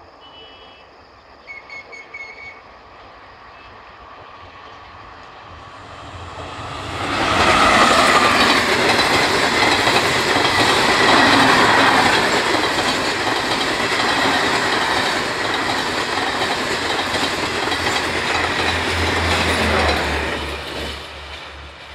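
A WAP5 electric locomotive and its passenger coaches pass at high speed. A loud rush of wheel-on-rail noise rises sharply about seven seconds in, carries on as the coaches stream by with a regular low beat of the wheels toward the end, then dies away near the end.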